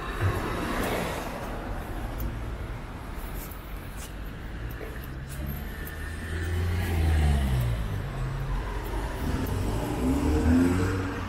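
Cars driving past on a wet city street, their engines pulling away and rising in pitch about halfway through and again near the end, over the steady hum of traffic.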